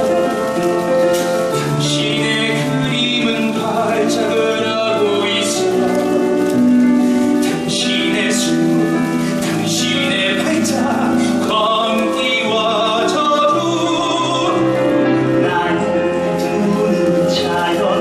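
Stage musical number: a singing voice over instrumental accompaniment, with long held notes.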